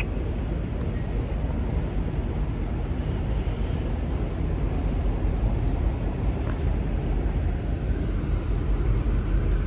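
N-class diesel locomotive engine running with a steady low rumble.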